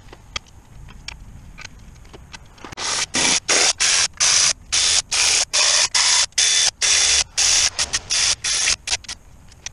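A pneumatic hand tool hissing in about twenty quick bursts of compressed air, each a quarter second or so, starting about three seconds in and stopping near the end. A few light clicks come before the bursts.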